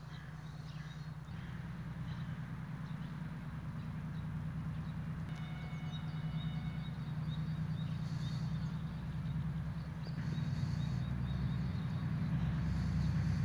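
Low, steady engine hum of an approaching diesel freight locomotive, not yet in sight, growing slowly louder, with small birds chirping now and then.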